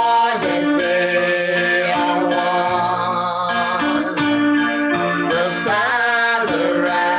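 Worship song music: held melody notes, some with a wavering pitch, over a steady accompaniment, with singing.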